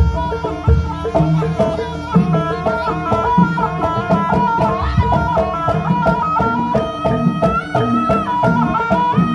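Javanese jaranan (kuda kepang) gamelan ensemble playing: kendang drum strokes and gongs under a high, stepping lead melody.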